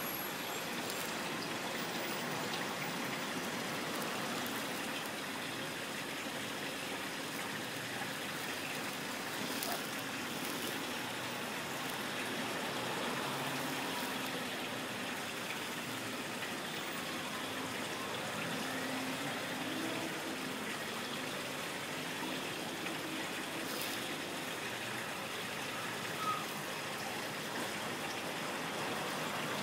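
Aquarium water trickling steadily, a filter outflow running into the tank, with one brief tap near the end.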